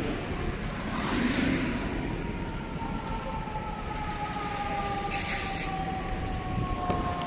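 Fire truck siren sounding two long tones that slowly fall in pitch, as if winding down, over the rumble of idling heavy vehicles. A short hiss of air comes about five seconds in.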